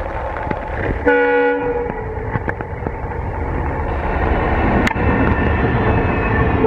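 WDP4D diesel locomotive passing with its express train in heavy rain: a short blast of its air horn about a second in, over the steady low rumble of the engine and train and the hiss of rain.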